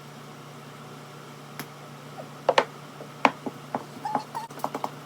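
A spoon clicking and tapping against a container as strawberry preserves are spooned into cupcake batter: a few sharp separate clicks, the loudest about two and a half and three seconds in, followed by lighter ticks.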